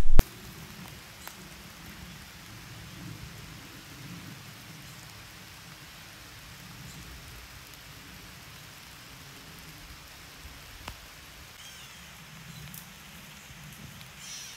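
Faint, steady outdoor background hiss with a low rumble under it, after a loud noise cuts off abruptly at the very start. There is a single faint click about eleven seconds in, and a few faint chirps near the end.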